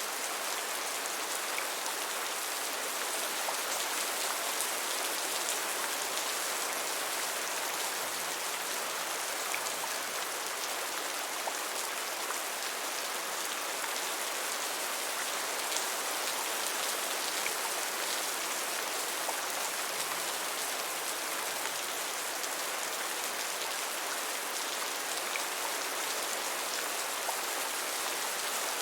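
Steady, gentle rain falling, an even hiss with small scattered drop ticks.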